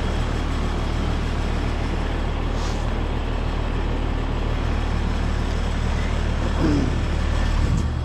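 Carrier heat pump outdoor unit running during a defrost cycle: a steady low compressor hum under a broad rushing hiss, with a brief knock just before the end.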